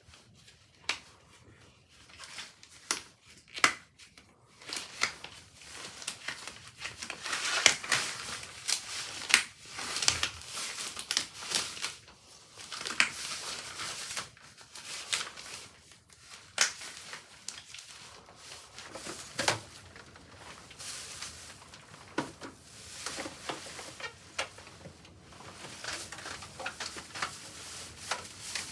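Crinkly material rustling as it is handled by hand, with many scattered clicks and light knocks.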